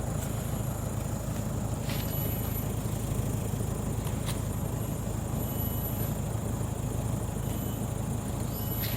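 A motor running steadily with a low rumble, with a few sharp clicks about 2, 4 and 9 seconds in.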